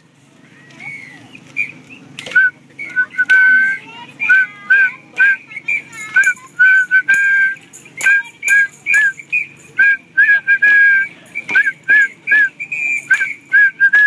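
A tune whistled in short, quick notes, some bending up or down, with sharp clicks among them; it starts about two seconds in.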